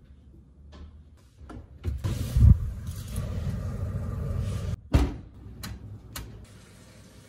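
Electric oven: a steady rumbling hum for about three seconds that cuts off suddenly, a loud thud, then a few light clicks of the oven's rotary control knob being turned.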